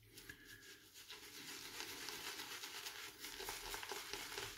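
Semogue boar-bristle shaving brush working soap lather on the face: a faint, steady crackling swish of bristles and foam, starting about a second in, as the lather is built up.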